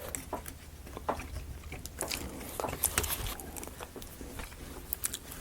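Scattered light clicks and taps of thin wooden kit pieces being handled and pressed into slots, irregular and close together.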